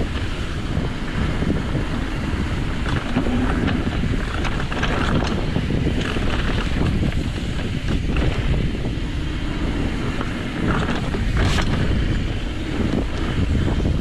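Wind buffeting the microphone over the rumble of a mountain bike's tyres and suspension on a rough dirt trail at speed, with scattered clacks and rattles from bumps, one sharp one late on.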